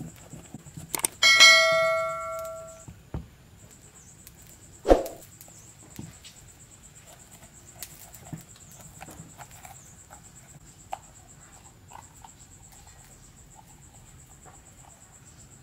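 A mouse-click then a bright bell-like ding ringing out for about a second and a half, about a second in: the subscribe-button sound effect. A sharp knock comes near five seconds, then soft ticks and taps of a knife coring a bell pepper on a wooden cutting board, over a faint steady high-pitched whine.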